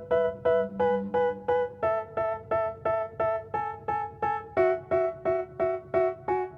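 Background music: a piano-like keyboard plays the same chord over and over, about three strikes a second. The chord changes about two seconds in and again near the middle.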